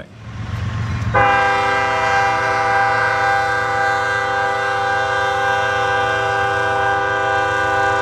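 Diesel locomotive air horn sounding one long, steady blast that starts about a second in, over the low rumble of the passing train.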